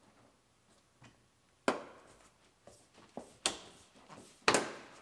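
Car door's outer window sweep being pressed onto the top edge of the door by hand, its clips snapping into place: three sharp snaps a second or so apart, the last the loudest, with a few fainter clicks between.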